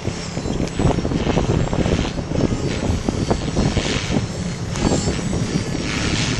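A 450-size electric RC helicopter flying overhead, its rotor and motor noise swelling and fading every second or so as it manoeuvres, over a rough low rumble.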